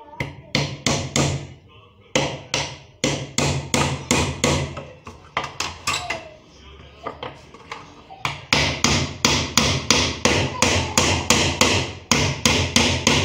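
A hammer striking wood in quick runs of sharp blows, about three a second, as pieces of a small wooden tissue holder are hammered together. The blows pause for about two seconds midway, then resume.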